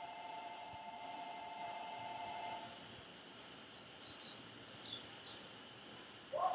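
A steady, faint two-pitched tone that cuts off a little under three seconds in, then a few quick high chirps from small birds.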